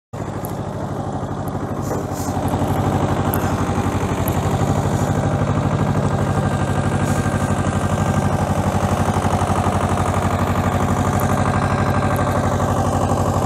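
New Holland TC30F compact tractor engine running steadily with an even pulsing beat as it drives a PTO rotavator churning through sandy soil. The rotavator loads the engine through its shaft rather than the wheels. The sound grows louder about two seconds in.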